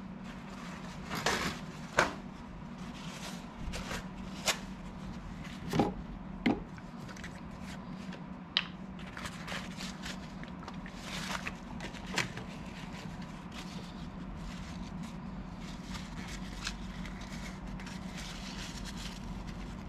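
Handling noises: a dozen or so sharp clicks and taps as a plastic alcohol bottle and its cap are handled, with paper towel rustling and rubbing, softer near the end, over a steady low hum.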